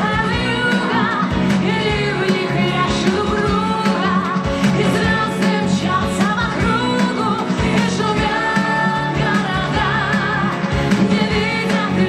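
A woman singing with wide vibrato over loud instrumental backing.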